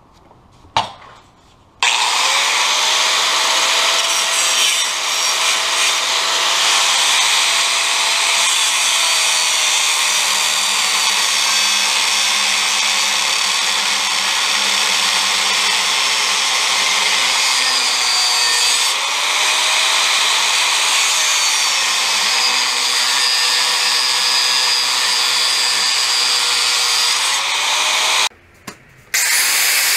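Angle grinder with a 1/8 inch cutoff wheel cutting into a cracked steel baler bracket, opening up the crack so the weld can penetrate. The cutting is a steady grind with the motor pitch rising and falling under load. It starts about two seconds in and stops for about a second near the end before starting again.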